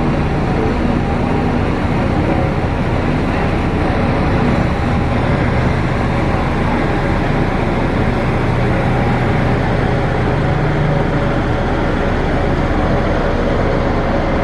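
Motor grader's diesel engine running steadily as the machine grades gravel, a constant low engine drone.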